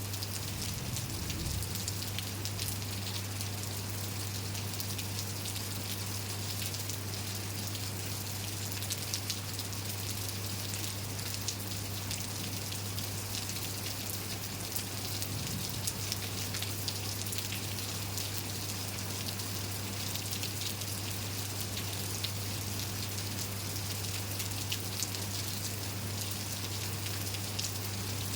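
Steady rain falling: an even hiss of drops with many small individual drop ticks, over a constant low hum.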